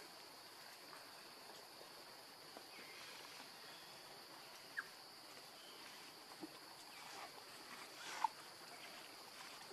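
Faint outdoor ambience: a steady high-pitched drone of insects, with two or three brief faint chirps, the loudest a little over 8 seconds in.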